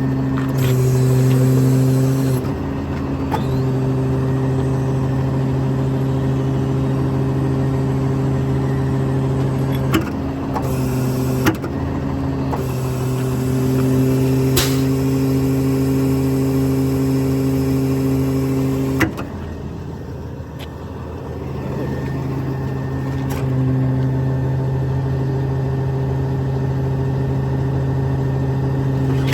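Diesel engine running at a steady speed. Its note drops for a few seconds about two-thirds of the way through, then picks back up, with a few sharp clicks along the way.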